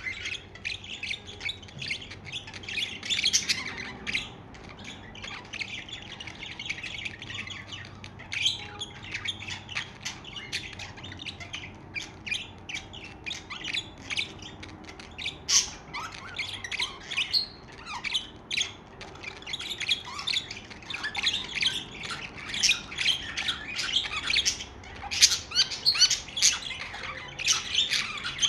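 Several budgerigars chattering and chirping together in a continuous stream of quick, high chirps and squawks, busiest near the end.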